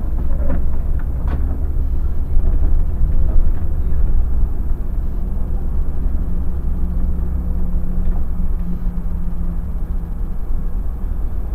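Irisbus Crossway LE city bus driving, with a steady deep rumble of engine and road. There are a few sharp knocks or rattles in the first second or so, and a steady low hum for several seconds in the middle.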